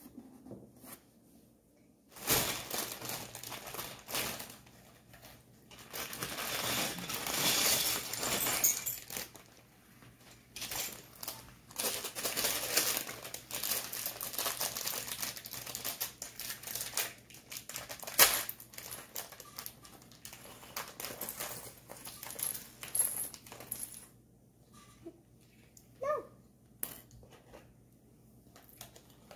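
Clear plastic bag of Lego pieces crinkling as it is opened and handled, with small plastic bricks clicking and rattling onto a hard countertop. The rustling runs from about two seconds in until near the end, then dies down to a few scattered clicks.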